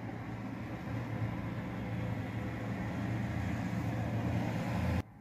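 Steady low machine-like rumble with a noisy hiss over it, growing slightly louder, then cut off abruptly near the end.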